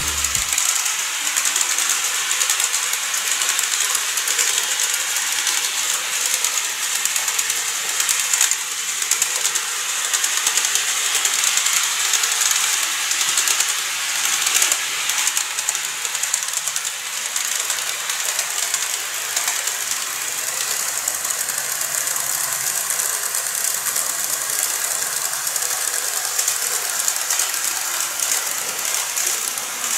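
TOMIX N-gauge JR Shikoku 5000 series and 223 series 5000 'Marine Liner' model train running on plastic track: a steady, high-pitched whirring rattle from its small motor and wheels.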